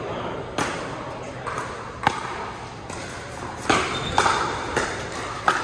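Pickleball paddles hitting a hard plastic ball in a rally: sharp pocks at uneven intervals, about six in all, ringing in a large hall.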